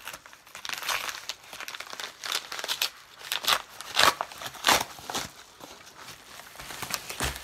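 Yellow padded paper mailer being torn open along its tear strip and crinkled in the hands: irregular rips and rustles, the loudest about four seconds in.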